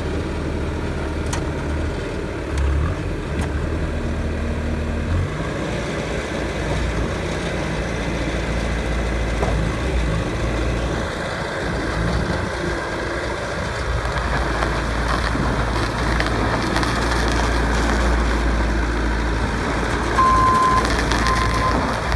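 2014 Bobcat S650 skid steer's diesel engine running steadily, its low drone shifting in pitch and loudness as the machine works. Two short high beeps sound near the end.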